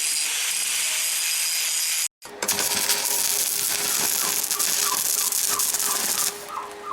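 Electric arc welding on the steel of a broken machete blade: the arc crackles and hisses steadily as a weld is laid. It cuts out briefly about two seconds in, then drops away shortly before the end.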